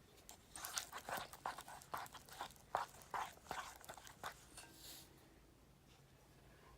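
Slime being stirred with a small mixing tool as detergent activator is worked in: a rapid, irregular run of sticky clicks and crackles that starts about half a second in and stops about five seconds in.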